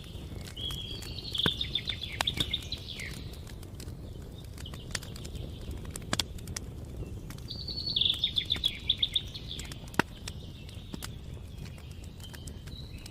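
Campfire crackling, with sharp pops scattered throughout over a low rumble. A songbird sings two short, rapid trilled phrases, about a second in and again about eight seconds in, with a fainter call near the end.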